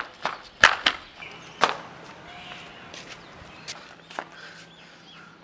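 Footsteps of a person in flip-flops hurrying and then walking on a concrete rooftop: a series of sharp slaps, the two loudest about a second apart near the start, the rest softer and more spaced.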